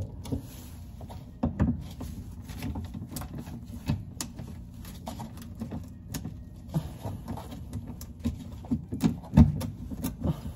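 Irregular clicks, scrapes and knocks of a screwdriver and hands working plastic push clips loose from a 10th-gen Honda Civic's plastic rear diffuser. The loudest knocks come about nine seconds in.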